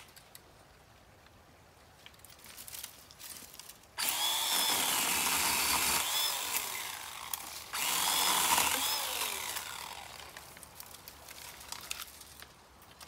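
Ryobi 18 V One+ cordless pole saw's electric motor and chain starting suddenly about four seconds in and running in two stretches, the second starting about eight seconds in, before winding down. Its whine dips and rises as the chain cuts through brush.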